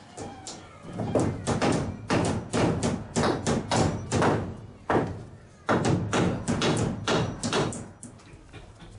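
A quick series of loud knocks or thumps, about two to three a second, with a short break about five seconds in.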